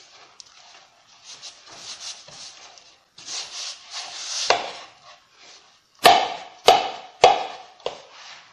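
A hand kneading soft flour-and-water dough in a plastic bowl: irregular rubbing and squishing, then three sharp thumps a little over half a second apart, the loudest sounds, as the dough is pressed against the bowl.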